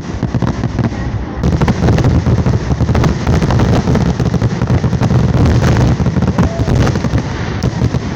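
Fireworks going off in a dense barrage of rapid bangs and crackles. It gets louder about a second and a half in and eases off near the end.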